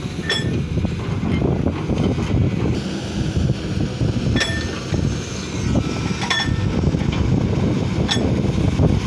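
Steady low rumble of heavy diesel machinery, a dump truck and a tracked excavator, running at a construction site, with wind buffeting the microphone. A few short ringing clinks cut through it, spaced a couple of seconds apart.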